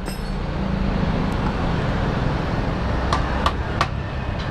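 Yamaha RX-King two-stroke single-cylinder motorcycle running steadily on the move, with road and wind noise. Three short sharp clicks come a little past halfway.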